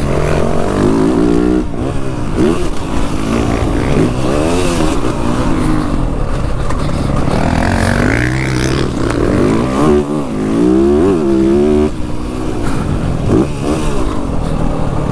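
Motocross bike engine heard from on board, revving up and dropping back again and again as the rider accelerates, shifts and slows around the dirt track.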